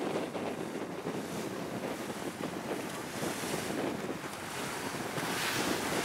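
Wind buffeting the microphone over the rush and slap of sea water around a moving boat, with louder hissing surges about halfway through and near the end.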